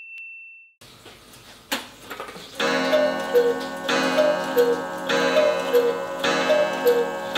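Mechanical 8-day cuckoo clock ticking, then from about two and a half seconds in the cuckoo calling four times as it strikes the hour: a higher then a lower note about once a second, each with a click from the mechanism.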